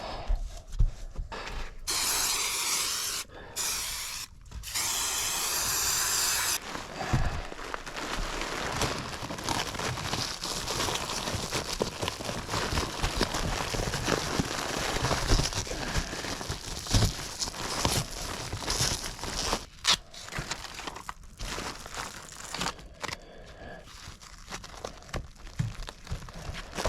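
Crinkling, rustling and tearing of air-conditioning duct materials being handled, with scattered knocks. A dense hiss runs for a few seconds near the start.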